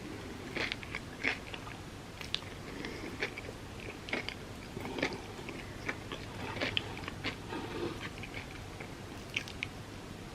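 Close-miked eating: biting into and chewing a crepe filled with Dubai chocolate, with irregular wet mouth clicks and small crunches.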